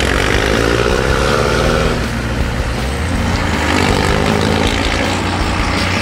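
Ford Bronco's Cummins 4BT four-cylinder turbo diesel accelerating away. The engine note climbs, drops about two seconds in as it shifts, then climbs again.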